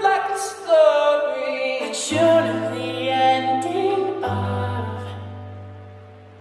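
Background music with a sung melody over a held bass note, fading down near the end.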